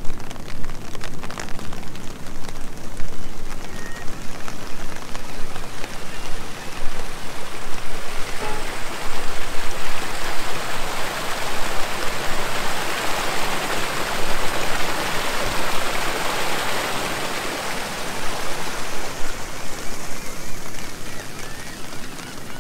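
Steady rain falling. The hiss grows louder about a third of the way in and eases off again near the end.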